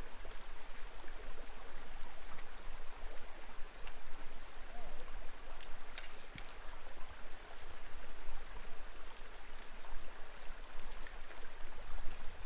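Small rocky creek flowing over stones, a steady rushing. A couple of sharp clicks come about six seconds in.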